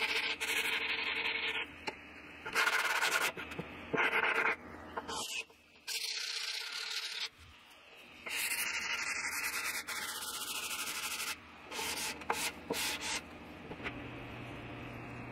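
Sandpaper on a hand sanding block rubbing along the edges of solid oak shelf boards, in a series of separate strokes with short pauses between.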